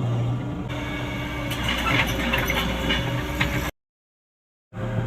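Komatsu PC75US-3 excavator's diesel engine running steadily, with some light clatter about two seconds in. The sound breaks off completely for about a second near the end, then picks up again.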